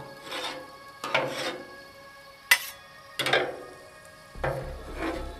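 Metal spatulas scraping and clacking on the steel top of a Blackstone griddle while stir-frying chopped vegetables, in separate strokes about a second apart, with one sharp clack about two and a half seconds in.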